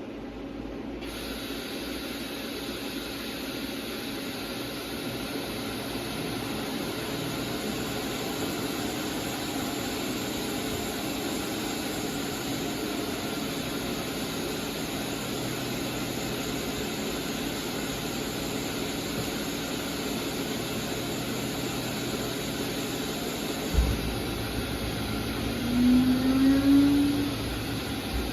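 Fadal 4020HT vertical machining center running with a steady hum and hiss. About 24 seconds in comes a thump, then a short, loud rising whine.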